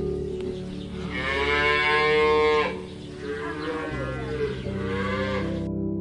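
Cattle mooing: one long moo starting about a second in and lasting about a second and a half, then a second, wavering moo that fades out shortly before the end.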